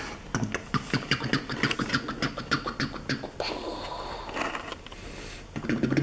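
A man making helicopter sound effects with his mouth: a rapid chopping run of clicks, about seven a second, for some three seconds, then a breathy whooshing hiss.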